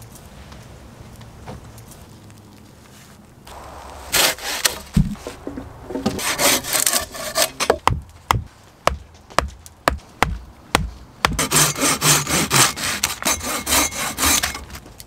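A folding hand saw cuts through a wooden stake in quick back-and-forth strokes, starting about four seconds in. In the middle come a run of separate sharp knocks, and then fast sawing again near the end.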